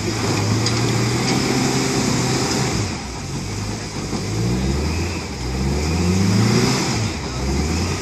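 Solid-axle-swapped Toyota pickup rock crawler's engine revving hard under load as the truck climbs a rocky ledge, its pitch rising and falling several times as the throttle is worked.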